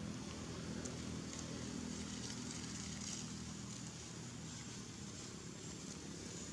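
A motor engine running with a steady low hum, fading about four seconds in, over a faint even hiss.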